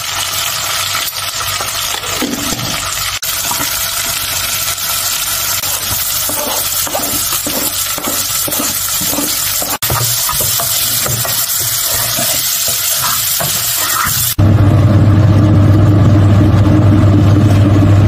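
Diced potatoes and grated carrot sizzling in butter in a pot, with a wooden spoon stirring and scraping in short repeated strokes. Near the end the sound jumps louder and deeper once liquid is in the pot and it bubbles.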